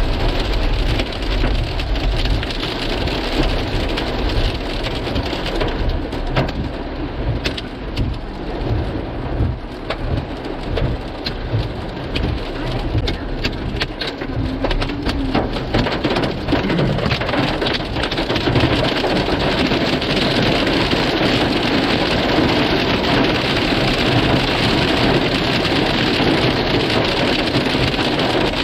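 Pea-sized hail and rain pelting down on hard surfaces: many separate sharp hits at first, thickening into a dense, even hiss of impacts after about eighteen seconds.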